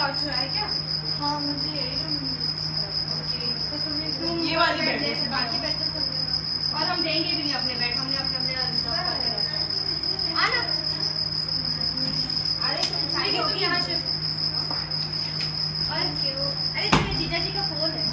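Indistinct women's voices talking, with a steady high-pitched whine or insect-like trill running underneath. There is a single sharp knock near the end.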